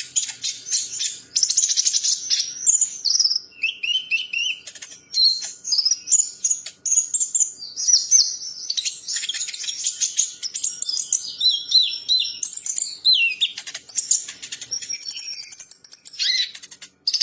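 Songbird singing a long, varied song of rapid chirps, trills and short gliding whistles, high-pitched and almost without pause.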